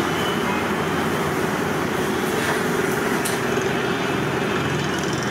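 Steady rumbling din of a busy kitchen, even throughout with a faint hum, and a couple of faint clicks about halfway through.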